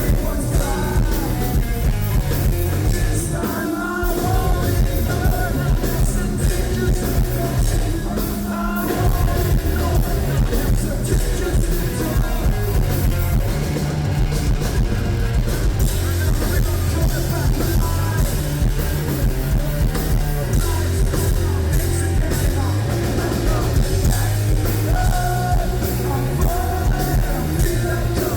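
Rock band playing live: distorted electric guitars, bass and drum kit with singing, with brief drops in the low end about four seconds in and again around eight to nine seconds.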